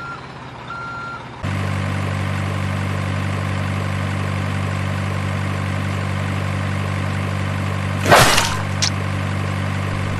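Two short high beeps, then a steady engine running, starting about a second and a half in and holding an even pitch. A brief loud whoosh comes near the end.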